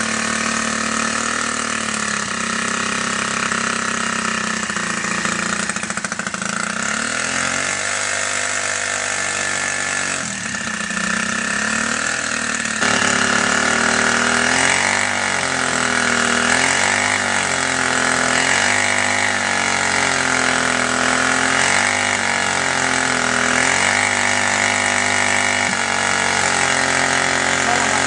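GEET-modified 49cc bicycle engine running, its throttle opened and closed again and again so the engine revs up and drops back, about every two seconds in the second half.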